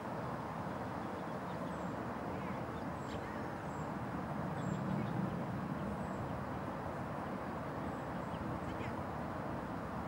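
Steady background rumble of distant traffic with a faint low hum, and faint high, thin bird chirps scattered through it.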